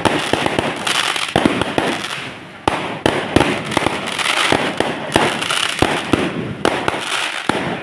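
Aerial fireworks going off in quick succession: repeated sharp bangs, each trailed by a crackle and hiss, a fresh burst every second or so.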